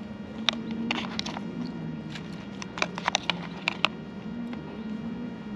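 Hand picking through soft plastic lures in a plastic tackle box: a scatter of small sharp clicks and ticks, bunched about a second in and again around three seconds, over a low steady hum.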